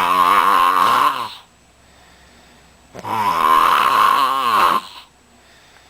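Loud snoring: two long, drawn-out snores with a wavering, whistly tone. The first ends about a second and a half in and the second starts about three seconds in.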